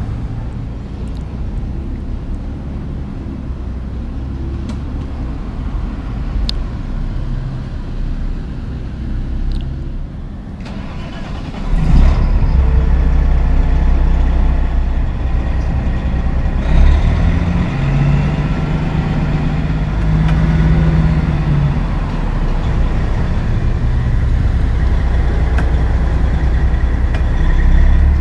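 Peterbilt 379 semi truck's diesel engine. A quieter low rumble first; about twelve seconds in the engine comes in suddenly and loudly and runs steadily as the truck pulls away with its refrigerated trailer, a brief higher tone rising over it partway through.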